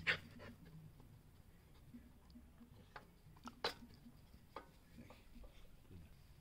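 Scattered faint, sharp clicks and ticks, about half a dozen, the loudest just after the start and about three and a half seconds in.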